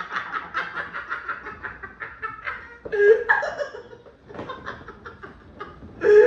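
Two young men laughing hard together in quick breathy bursts. The laughter fades, flares up again about three seconds in, and rises once more near the end.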